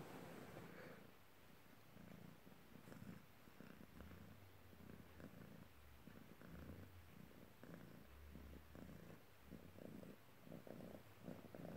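Maine Coon cat purring softly and steadily.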